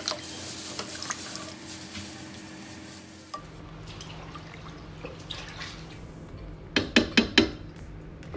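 Braised fish pieces slid from a frying pan into a pot of water, with wet splashing and light clatter. After a cut there is a low steady hum, then about four sharp clinks of kitchenware a little before the end.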